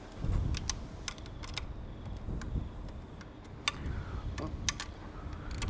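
Irregular metal clicks and taps of a 13 mm spanner working a serrated steel flange nut on a dirt bike's bash-plate bracket, about half a dozen over a few seconds, with low wind rumble on the microphone.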